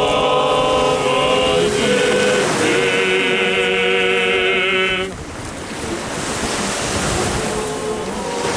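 Voices singing a sustained Orthodox liturgical chant, several held notes with vibrato, which stops abruptly about five seconds in. After that, the wash of sea waves and wind is left, with faint singing coming back near the end.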